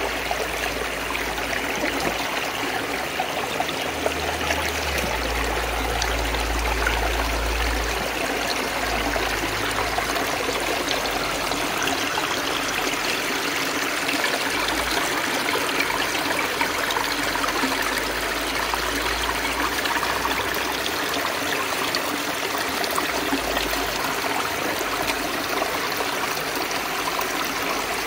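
Shallow, rocky creek flowing and trickling, a steady rush of water that holds unchanged throughout.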